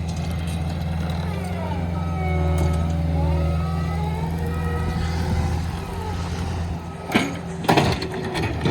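Cat 289 compact track loader's diesel engine working steadily while pushing snow, its pitch swinging up and down. A back-up alarm beeps for a couple of seconds in the middle, and there are a couple of knocks near the end.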